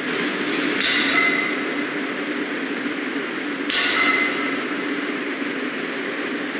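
Mobile crane's engine running steadily with a low drone as it holds the load, with two sudden sharp, ringing sounds about a second in and just before four seconds in.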